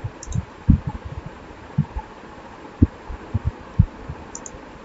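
Soft, low thumps at irregular intervals, about a dozen, over a steady faint hiss: a computer mouse being clicked and handled on a desk.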